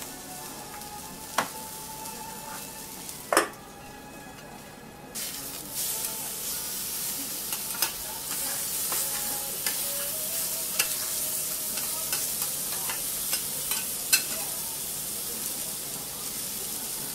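Food frying on a hot steel teppan griddle: a low sizzle that grows louder about five seconds in, as thin slices of pork go onto the plate. Several sharp clinks of a metal spatula on the griddle cut through it, the loudest about three and a half seconds in.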